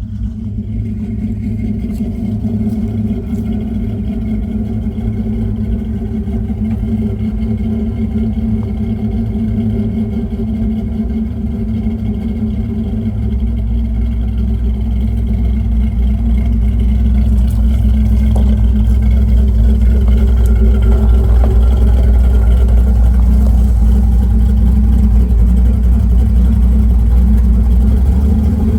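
Car engine idling with the electric radiator cooling fan running. The steady low hum grows louder about halfway through.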